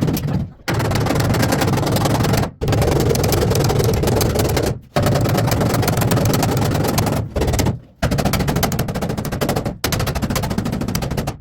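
Pneumatic air hammer rattling against sheet metal in rapid-fire bursts of about two seconds, with short pauses between them.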